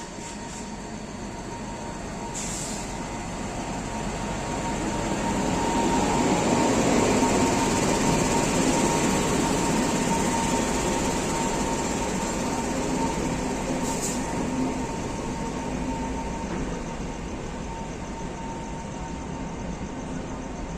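A passing train: rail noise builds to a peak about seven seconds in, then slowly eases off, with a steady high tone throughout and two brief high hisses.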